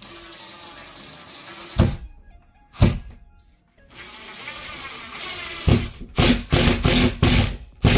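Power drill driving a screw into a wooden wall stud: the motor whirs in two steady runs, then gives a series of short hard bursts near the end as the screw bites into the stud.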